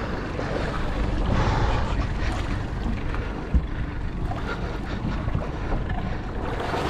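Wind rumbling on the microphone aboard a small boat at sea, over a wash of water noise, with a single knock about three and a half seconds in.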